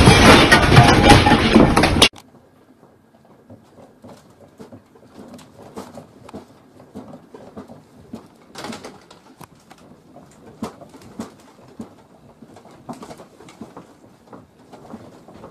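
Loud rattling and clattering of a room's contents shaking in a strong earthquake, cut off abruptly about two seconds in. After that come faint, scattered small ticks and knocks of things moving in a room during the quake.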